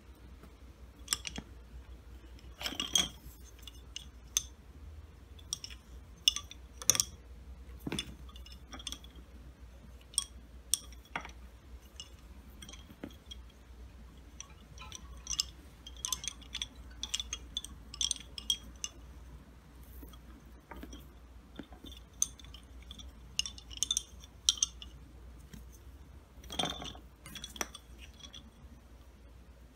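Wooden lace bobbins clicking against each other in irregular single taps and quick clusters as pairs are crossed and twisted in bobbin lace making.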